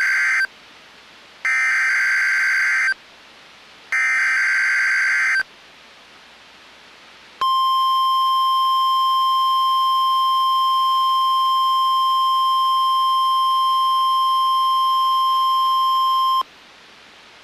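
NOAA Weather Radio weekly test signal played by a Midland weather radio: the end of the first Specific Area Message Encoding (SAME) data header burst, then two more identical screeching bursts of about a second and a half each. After a two-second pause comes the steady 1050 Hz warning alarm tone, held for about nine seconds and cutting off sharply, leaving faint static.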